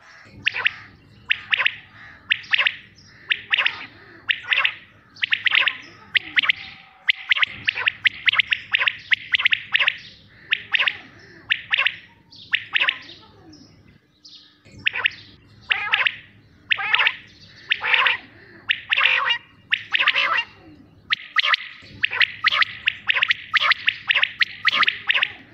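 Quail calling: short, sharp, high-pitched calls repeated in quick runs, with brief breaks every seven seconds or so.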